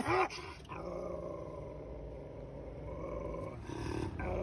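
A beagle's howling bark cuts off just at the start, followed by a low, steady growl for about three seconds as its wound is being dressed.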